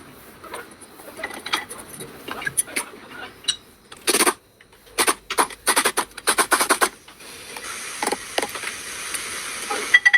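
Metal hand tools clicking and clanking in quick bursts during front brake work, then a steady hiss from about seven seconds in.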